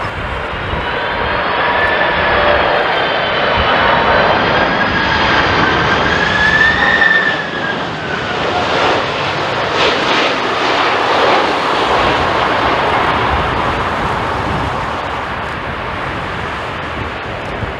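Jet airliner passing close, its engines making a broad roar with a high whine that wavers in pitch. The sound swells to a peak about seven seconds in, then fades slowly.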